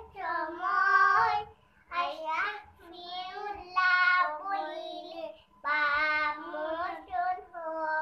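Young children singing a Bengali Islamic song without accompaniment, in short held phrases with brief pauses between them.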